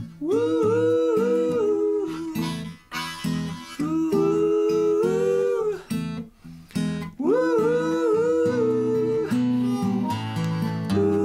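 Blues harmonica playing a solo of long held notes that scoop up into pitch and drop away at the end, over a steady strummed acoustic guitar rhythm. The melody breaks off briefly about six seconds in, then comes back in.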